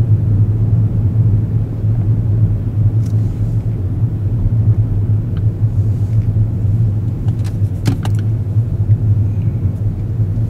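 Steady low road and engine rumble inside a moving car's cabin, with a few brief clicks about eight seconds in.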